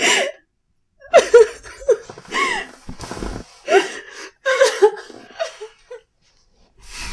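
A woman gasping and crying out in short, irregular breathy bursts with pitch that slides up and down, sounding distressed.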